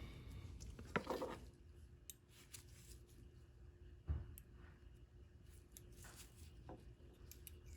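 Faint clicks and a few light knocks of small steel ratchet parts being handled and greased during reassembly, with a slightly stronger knock about 1 second in and again about 4 seconds in.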